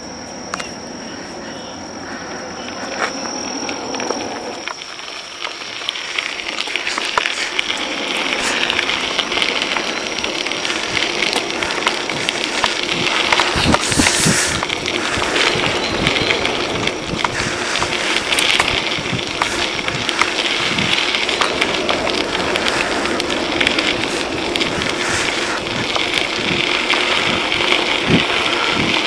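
Bicycle riding along a gravel trail: steady rolling noise of the tyres on gravel, with small rattles and occasional low thumps, louder after the first few seconds. A steady high-pitched tone runs through the first few seconds.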